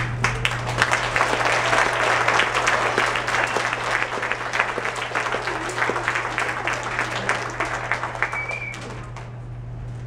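Audience applauding, dense clapping that thins out and dies away near the end, over a steady low electrical hum.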